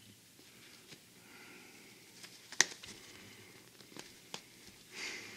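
Small metal pick clicking and scraping against a cap's metal top button as it is pried loose: scattered light ticks with one sharp click about two and a half seconds in, and a short hiss near the end.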